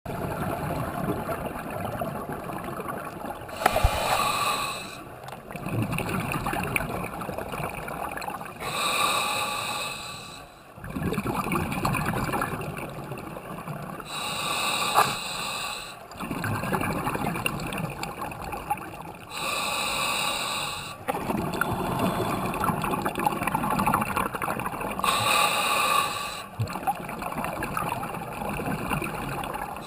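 Scuba diver breathing through a regulator underwater: a hissing inhale about every five seconds, five in all, each followed by a longer stretch of bubbling exhale.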